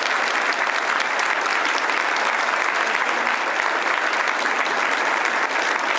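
A crowd applauding: sustained, even clapping from many hands.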